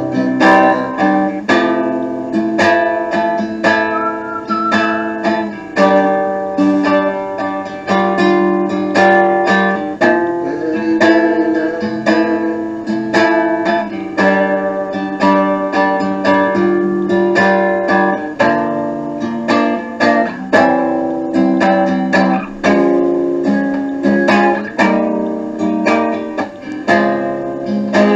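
Acoustic guitar strummed in a steady rhythm, moving through a run of chords, with no singing.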